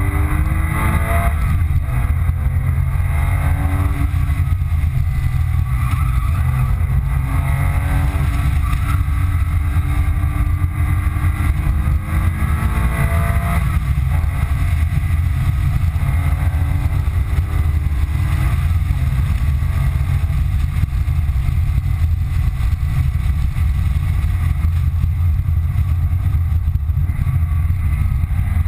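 The 2005 Porsche 997 Carrera 2's flat-six engine under hard acceleration, heard from inside the cabin over a heavy low drone of road and wind noise. Its pitch climbs through the first half, then drops suddenly at an upshift about halfway through.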